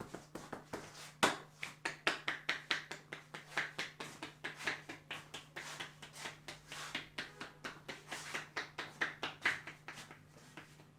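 A barber's hands rapidly and rhythmically tapping and slapping on a person's head during a head massage, a few strikes a second.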